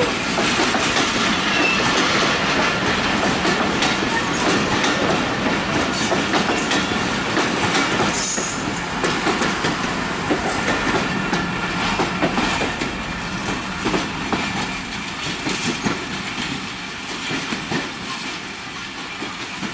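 Railway coaches of an express train rolling past, wheels clattering steadily over the rail joints with a brief high wheel squeal about eight seconds in; the clatter fades a little near the end.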